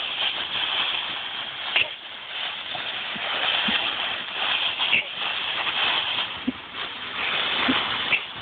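Dry fallen leaves rustling and crunching continuously as a dog plunges and digs through a leaf pile, with a few sharp crackles.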